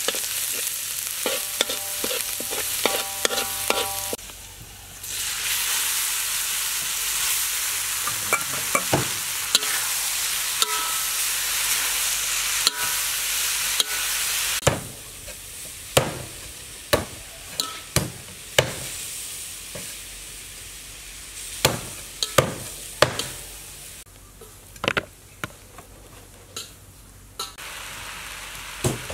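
Food frying in hot oil in a steel wok, stirred with a metal spatula. First minced garlic sizzles while the spatula scrapes and squeaks against the pan. After a short break comes a loud steady sizzle; about halfway through the sizzle drops and the spatula knocks and scrapes against the wok again and again as chopped red chillies are stir-fried.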